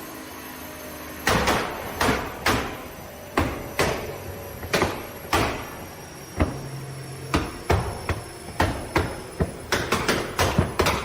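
Nissan GT-R Nismo's twin-turbo V6 on a custom exhaust, popping and banging: a string of sharp exhaust pops at uneven intervals, starting about a second in and coming faster near the end.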